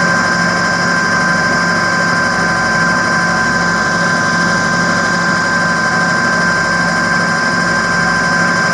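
Cue lathe motor running steadily with a constant high whine, spinning a cue shaft while a microfiber cloth with polishing compound is held against the ferrule and tip to polish and burnish them.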